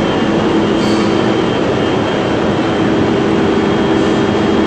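Loud, steady machine running: a continuous mechanical noise with a low hum and a thin, high steady whine.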